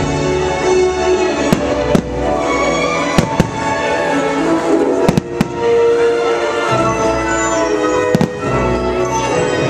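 Fireworks going off in sharp bangs, several in quick pairs and clusters, over loud orchestral show music.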